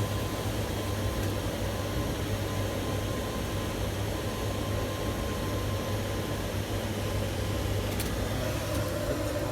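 Steady mechanical hum inside a tower crane's cab as the crane's drives run to move the hook, with a few faint clicks near the end.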